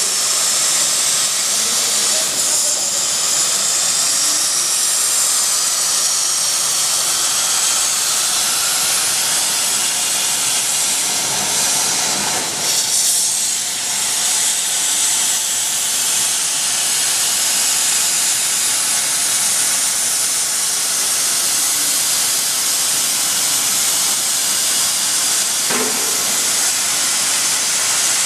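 Plasma cutting torch of a portable CNC plasma cutter hissing steadily as it cuts, a loud, even rush of air and arc that wavers briefly about halfway through.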